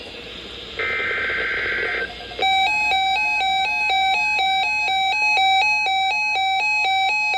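Weather radio receiving an emergency alert: about a second in, a one-second burst of data screech from the alert header, then the radio's alert alarm beeps in a fast, even two-tone alternation.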